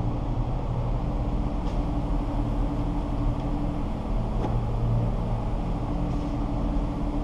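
Steady low mechanical hum running at an even level, with a few faint ticks.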